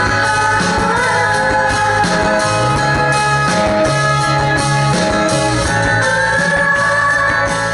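Live rock band playing: electric guitar over a stepping bass line and a steady drum beat, with a woman's voice singing in long, gliding notes over the top.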